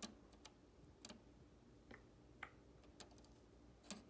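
Near silence broken by several faint, irregular small clicks and taps: handling noise as multimeter test leads and a clip-lead jumper are held against thermostat wires.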